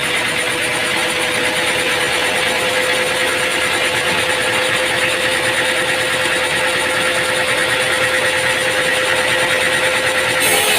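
Machinery running steadily: a dense, even mechanical noise with a constant hum, changing abruptly near the end.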